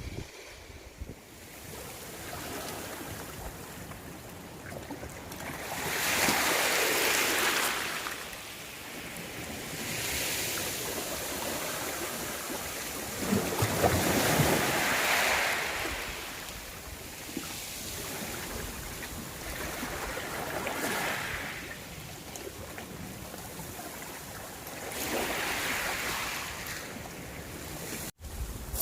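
Sea waves breaking and washing up a small beach. The sound swells and fades in about five surges a few seconds apart.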